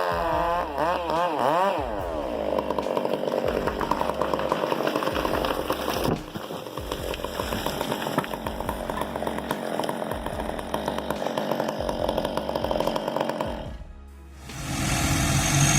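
Chainsaw engine, its pitch wavering up and down for the first couple of seconds, then running steadily under load as it cuts through wood, over background music with a pulsing bass beat. It fades away about fourteen seconds in, and a different engine sound comes in near the end.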